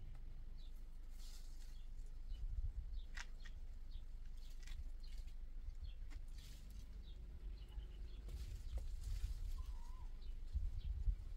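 Wind rumbling on the microphone, with scattered light rustling of tree leaves and plastic shade netting and a short faint bird chirp near the end.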